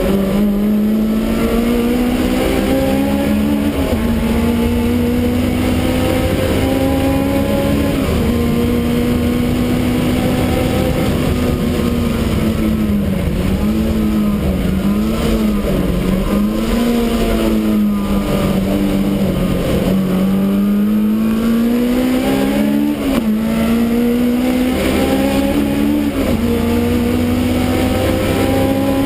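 Supercharged BMW E30 race car's engine, heard from inside the stripped-out cabin, pulling hard and climbing in revs with a gear change every few seconds. About halfway through, the revs rise and fall quickly several times.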